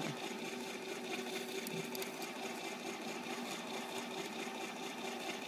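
Electric ice cream maker's motor running with a steady, even hum as the paddle churns the nearly set, thickened ice cream in its frozen bowl.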